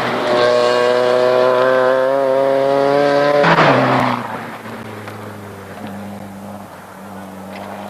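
Rally car engine held at high revs as the car passes close at speed. The pitch drops sharply about three and a half seconds in as it goes by, and the sound fades away within the next second. A faint low steady drone remains after it.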